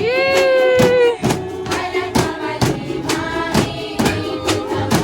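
Music with a singing voice: a long held note in the first second, then shorter sung phrases, over a steady percussive beat of sharp strokes about twice a second.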